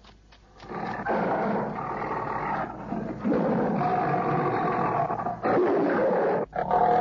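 Leopard roaring and snarling: three or four long roars with brief breaks between them.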